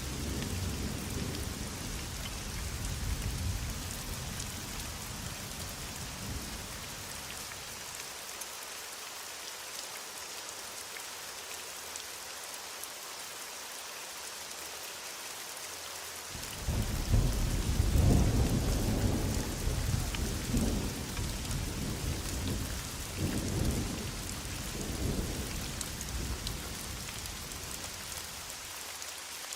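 Heavy rain falling steadily, with a low rumble of thunder dying away over the first several seconds. More than halfway through, a loud peal of thunder breaks in suddenly and rolls on in several swells for about ten seconds before fading.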